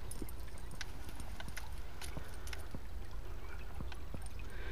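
A dog's paws and claws stepping on dirt and gravel: scattered, irregular light clicks and scuffs as it walks slowly and sniffs, over a steady low rumble.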